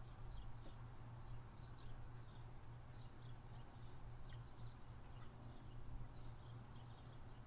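Small birds chirping repeatedly, faint, over a steady low hum.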